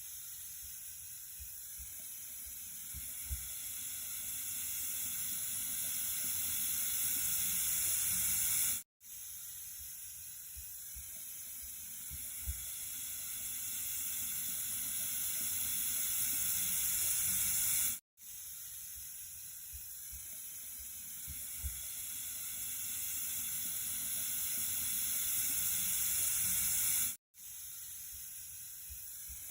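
Water running with a steady, high-pitched hiss. The recording is a loop of about nine seconds that swells slowly, cuts out for an instant and starts over, with a small tick recurring in each pass.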